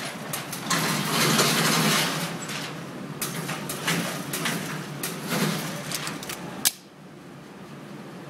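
Gunshots on a shooting range, fired in an irregular string, with the last sharp crack about six and a half seconds in, followed by a low steady hiss.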